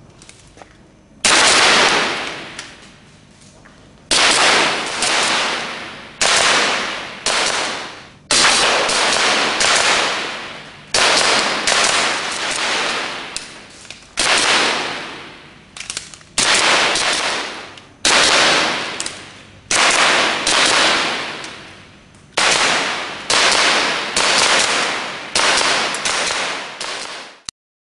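A series of about eighteen loud gunshot-like bangs at irregular intervals of one to two seconds, each ringing out and fading before the next. The series cuts off suddenly near the end.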